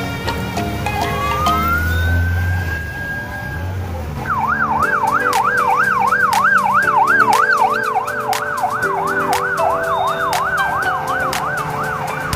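Police escort siren: a tone rises and holds for a couple of seconds, then about four seconds in it switches to a fast yelp that warbles up and down about three times a second.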